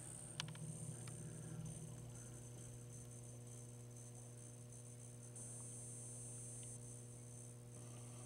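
Faint, low, steady electrical hum with a thin high whine above it, from a powered-on Data East Hook pinball machine as its new PinSound Plus sound board starts up. A couple of faint clicks come in the first second or so.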